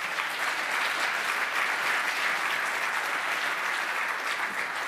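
Audience applauding in a lecture hall, a dense patter of many hands clapping that fades out near the end.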